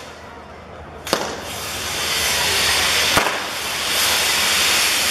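Ground fireworks: the hissing jets of a fireworks wheel, a sharp bang about a second in, after which the hiss builds back up to a loud steady rush, and another crack about three seconds in.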